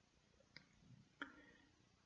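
Near silence: room tone, with two faint clicks, about half a second and a little over a second in.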